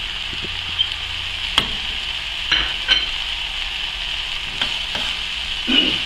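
Shredded chicken filling sizzling in an aluminium pot, a steady hiss, while a silicone spatula stirs it, with several short knocks.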